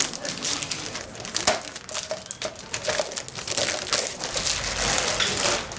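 Crinkling and rustling of something handled by hand: a continuous irregular run of small crackles with a few sharper clicks.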